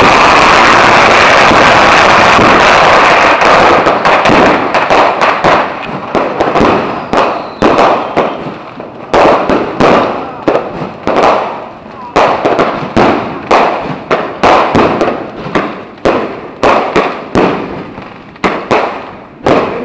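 Chinese New Year firecrackers and fireworks, very loud: a dense, unbroken crackle for the first four seconds or so. Then comes a rapid, irregular run of separate sharp bangs, about two a second, each dying away quickly, growing sparser and quieter toward the end.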